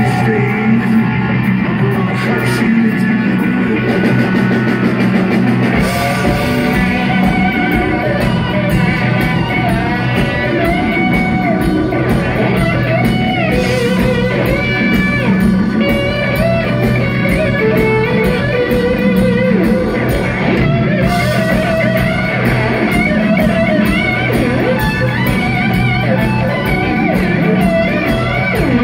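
Live rock band playing an instrumental passage: an electric guitar lead with bending notes over a steady low bass drone, keyboards and drums. The drums come in more fully about six seconds in.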